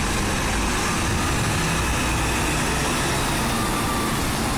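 Steady running of vehicle engines, a truck's and cars', on a ferry's car deck as cars move past.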